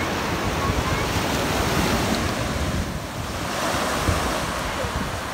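Small surf breaking and washing up on a sandy beach, swelling and easing with each wave, with wind buffeting the microphone.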